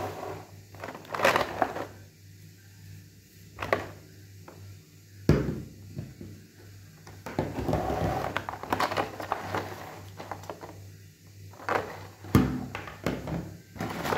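Plastic action figures being handled on a clear plastic packaging tray: irregular crinkling and rustling of the thin plastic, broken by a few sharp knocks of the figures against the tray and a wooden tabletop.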